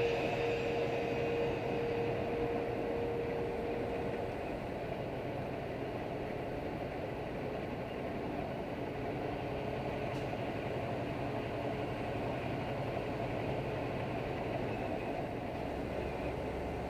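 Steady engine and road noise heard inside a semi truck's cab while it rolls down a long highway grade. A faint steady note fades out about four seconds in.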